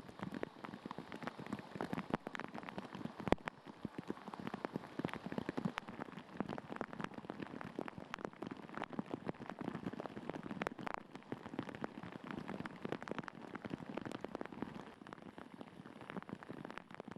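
Heavy rain falling, with many close drops striking a hard surface as sharp ticks over a steady hiss.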